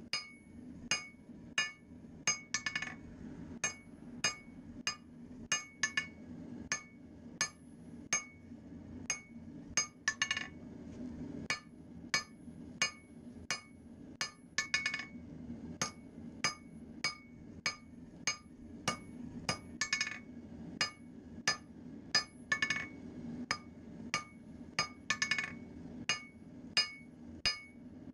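Blacksmith's hammer striking a red-hot railroad spike on an anvil, blows about two a second with a bright ring. Every few seconds they break into a quick run of lighter taps.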